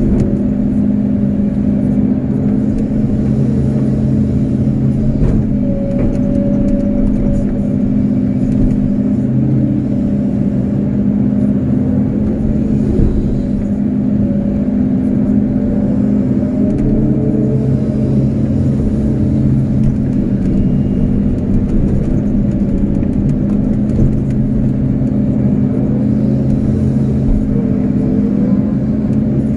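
Kobelco SK250-8 excavator's diesel engine running steadily under load while the arm and bucket dig, with a hydraulic whine that rises and falls in pitch several times as the arm and bucket move.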